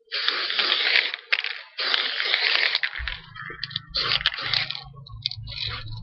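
Aerosol spray paint can hissing through a gravity cap: two long sprays, then several short bursts. A steady low hum starts about halfway through.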